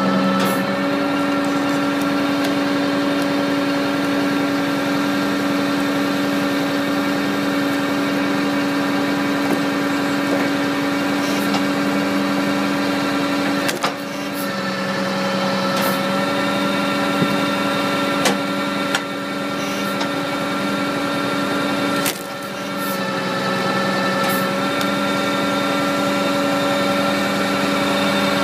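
PTO-driven Stanley Logger firewood processor running: a steady engine and hydraulic drone that dips briefly about 14 and 22 seconds in as the splitter works, with a few sharp knocks.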